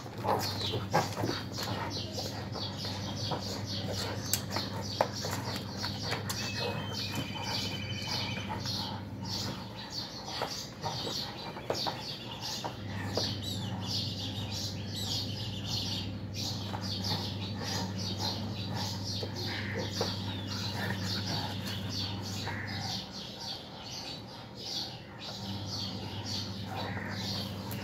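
Two cats wrestling on a concrete floor: scattered scuffling and sharp clicks, over a steady low electrical hum that drops out twice. A brief high chirp comes about seven seconds in.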